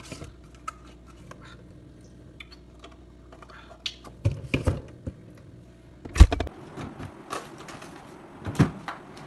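Scattered knocks and thumps of household things being handled and moved in a search, the loudest about six seconds in, with a drawer pulled open near the end.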